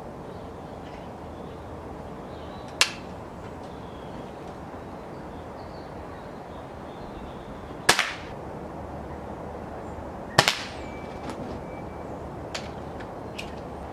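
Walther LP53 spring-piston air pistol firing .177 pellets: three sharp shots, about 3, 8 and 10 seconds in, the last the loudest. A few fainter clicks follow near the end.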